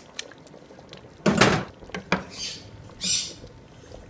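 A wooden spoon stirring thick chicken stew in a stainless steel pot, making a few short, wet sounds. The first, about a second in, is the loudest; lighter, hissier ones follow roughly every second.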